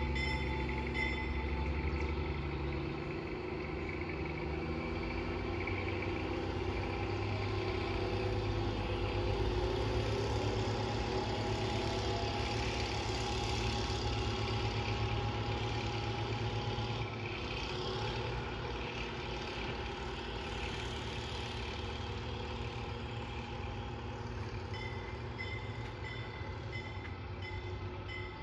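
Diesel locomotive No. 12 of the Huckleberry Railroad running steadily with the train standing at the platform: a low, even engine sound that eases a little about two-thirds of the way through.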